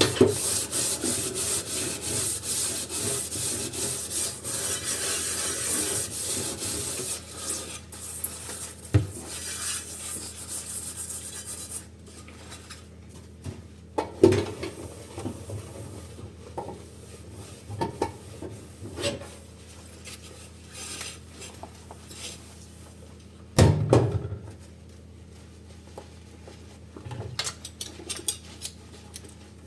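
Dishes being washed by hand: a dish scrubbed in quick, rasping strokes for the first part, then scattered knocks and clinks as the dishes are handled, with two louder knocks, one shortly after the scrubbing stops and one later on.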